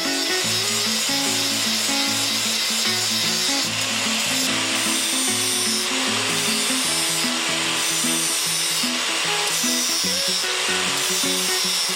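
Background music with a steady abrasive tool noise, a tool cutting or grinding steel bar, that eases off briefly every second or two.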